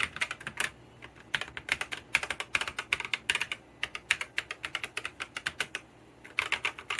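Typing on a Skyloong GK87 mechanical-style keyboard fitted with Gateron optical switches: quick runs of keystroke clacks, with short pauses about a second in and near the end.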